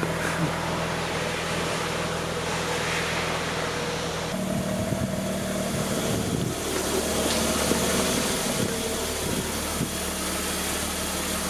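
Mazda RX-8's twin-rotor Renesis rotary engine idling cold on its first start after a rebuild. The idle speed steps up about four seconds in and shifts a couple more times.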